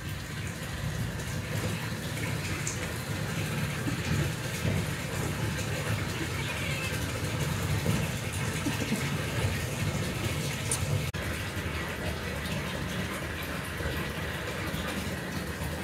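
Water running steadily into a bathtub, an even rushing hiss, with a brief dropout about eleven seconds in.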